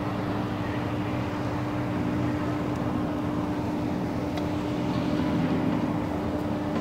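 Reims-Cessna FTB-337G's two piston engines and propellers, one pulling at the nose and one pushing at the tail, droning steadily with one held tone as the aircraft touches down and rolls out.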